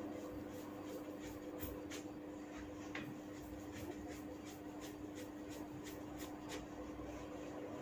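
Hair cracking during a head massage: tufts of hair pulled and snapped against the scalp, giving many small, sharp crackles at an irregular pace of about two to three a second, over a steady low hum.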